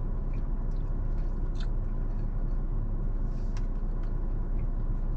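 Chewing and a couple of short crisp crunches while eating a Thai beef salad, over a steady low hum inside a car's cabin.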